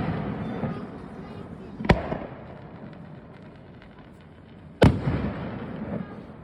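Aerial firework shells bursting: two sharp bangs about three seconds apart, each trailing off in a long rumble.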